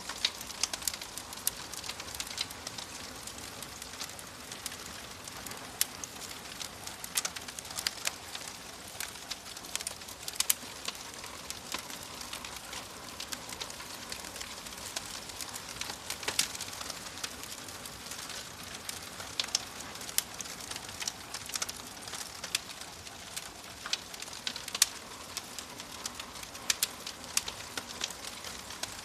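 Fire crackling: frequent irregular sharp snaps and pops over a soft steady hiss.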